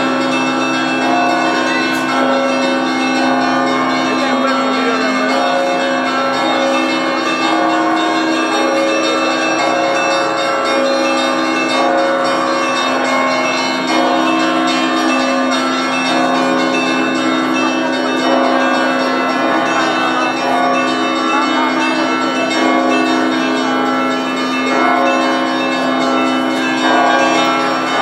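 Orthodox church bells of the Zaikonospassky Monastery's Saviour Cathedral ringing a festive peal, many bells of different pitches sounding together and overlapping without a pause, over a steady low hum from the largest bells.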